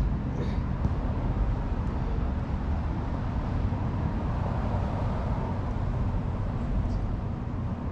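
Steady low rumble of outdoor background noise, with a few faint knocks now and then.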